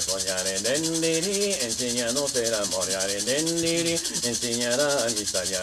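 An icaro sung without clear words: a voice holding long, steady notes and gliding between them, over a leaf-bundle rattle (chakapa) shaken in a fast, continuous rustle.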